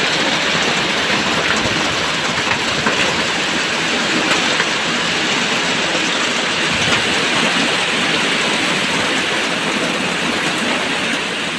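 Rain falling steadily, a dense, even hiss with a few faint drop ticks.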